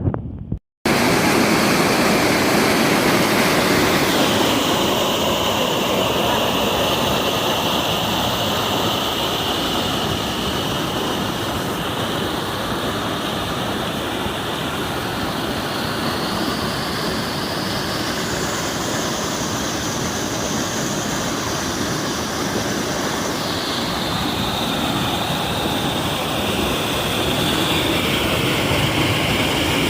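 Steady rushing noise of heavy rain and running water, cutting in after a brief dropout near the start.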